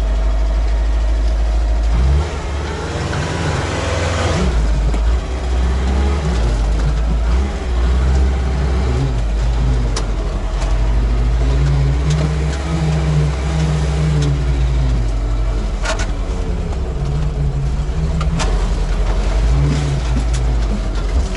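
Tracked vehicle's engine, heard from inside the cab, running at low speed with a heavy low drone whose pitch rises and falls as the throttle is worked. A few sharp knocks come through along the way.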